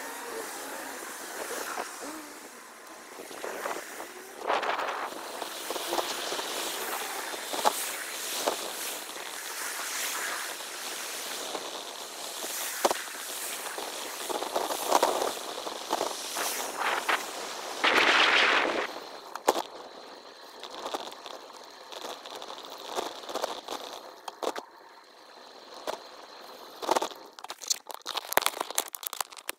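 Street and riding noise from a bicycle ride, played at six times speed: a fast, high-pitched jumble of rushing noise with many short clicks and knocks. There is a louder rush about 18 seconds in, and the sound is quieter in the last third.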